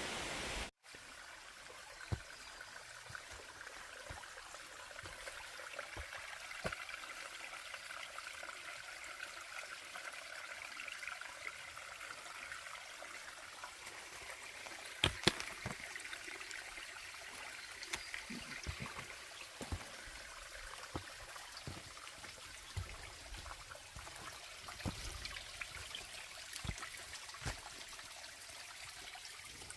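A small mountain stream trickling and running over rocks, with scattered light clicks over it.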